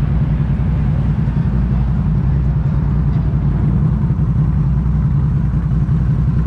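ATV engine running steadily at a constant pace, heard close up.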